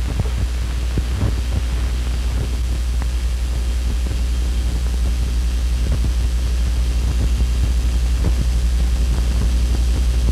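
Steady low hum with hiss and scattered clicks and crackles: the surface noise of a worn 1957 film soundtrack, with no dialogue or music.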